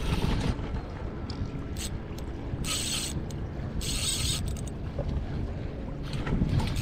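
Spinning reel being cranked in short spurts to work a pencil popper, its gears and line whirring in bursts of about half a second.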